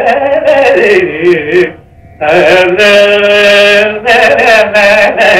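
Carnatic vocal singing by a male voice: ornamented phrases whose notes swing up and down, broken by a short pause about two seconds in, then a long held note.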